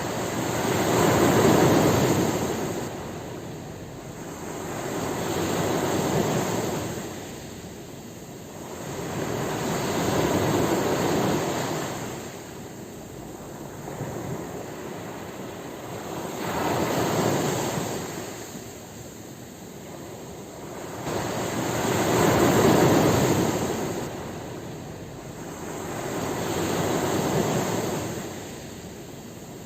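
Ocean waves breaking and washing onto a shore, coming in about six slow surges that each swell and fade over four to five seconds.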